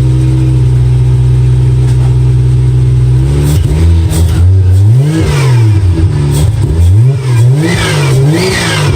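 Toyota 1JZ twin-turbo inline-six engine running on its first start: it idles steadily for about three seconds, then is blipped up and down in a series of quick revs before settling back toward idle near the end.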